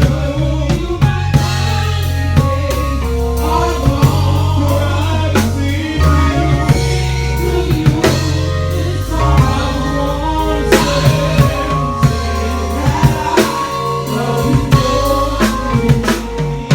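A live gospel band playing a slow song: deep bass guitar notes, drum kit, and keyboard, with a voice singing.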